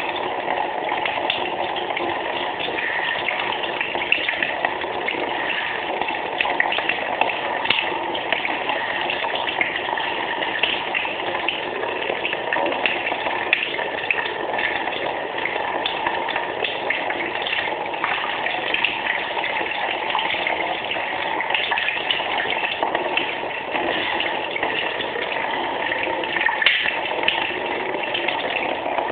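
Tap water running steadily and splashing over a Swiss Army knife held under the stream while its tools are worked open and shut to rinse out the dirt inside.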